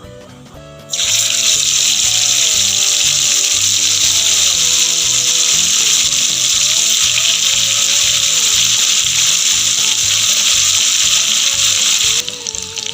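Loud, steady sizzling of marinated chicken pieces deep-frying in hot oil in a kadai, starting suddenly about a second in as the pieces go into the oil and cutting off abruptly near the end.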